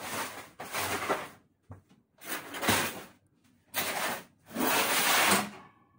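A run of about five sneezes in quick succession, each a hissy, breathy burst with little voice in it, typical of an allergy sneezing fit.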